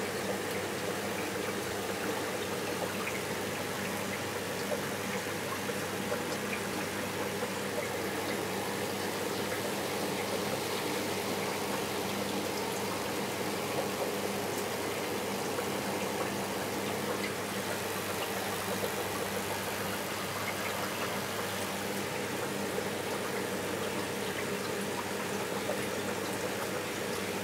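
Steady hum of reef aquarium pumps with an even wash of circulating water.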